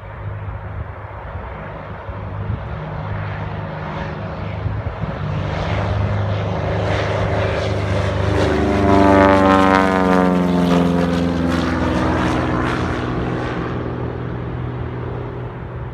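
Propeller aircraft engine flying past: the drone builds to its loudest about nine seconds in, then the engine note drops in pitch as the plane goes by and fades away.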